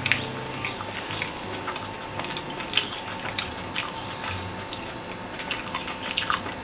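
Scattered small crunches and clicks of masala pav, a butter-toasted bun stuffed with bhaji, being handled and bitten close to the microphone.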